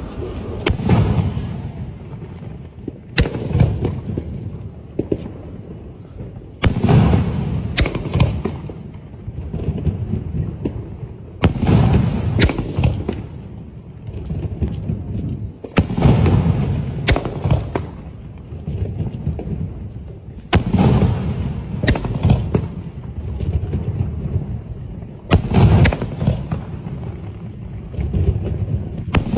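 Fireworks going off in repeated volleys: sharp cracks, each trailing into a low rumbling boom, in clusters of one to three bangs about every four to five seconds.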